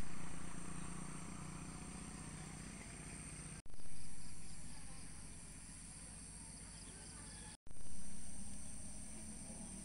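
Outdoor ambience: a steady high-pitched drone of insects over a low steady hum. It breaks off twice, and each time it comes back louder and then settles.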